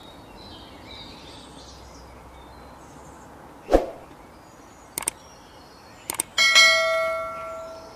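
End-screen subscribe-animation sound effects over faint bird chirps: a sharp pop, then two quick double clicks as the button is pressed, then a bell chime that rings and fades over about a second and a half.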